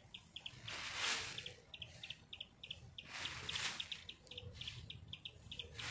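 A shovel scooping dry rice bran and tipping it into a sack: a rustling swish about a second in and another a little past three seconds. Rapid, high chirping runs underneath throughout.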